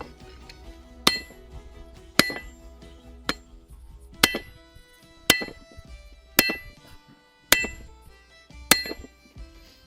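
Hand hammer striking a steel drift to open the eye of a hot axe head, at a steady pace of about one blow a second, each blow ringing bright and metallic.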